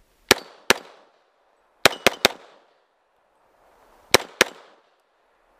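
Glock semi-automatic pistol firing seven shots in a timed string: a pair, a quick triple about a second and a half later, then another pair, each shot with a short echo.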